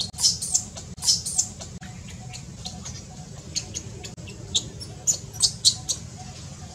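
Newborn macaque infant giving short, high-pitched squeals in quick clusters, a few in the first second and a half and several more singly from about three and a half seconds on: distress calls as an adult monkey grabs and pulls it about.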